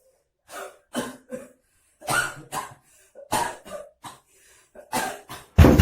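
A person coughing in several short bouts, two or three quick coughs in each. Just before the end a sudden, much louder burst of noise cuts in.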